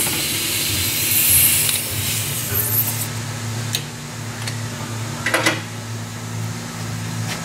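Steady low hum of shop machinery, with a few short clinks and rattles of hand tools being handled, spaced a second or so apart.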